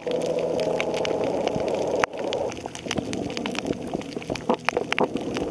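Underwater sound heard by a camera below the surface: a dense, constant crackle of short clicks, typical of a coral reef. For the first two and a half seconds a steady hum of several tones runs under the crackle, and a sharper click comes about two seconds in.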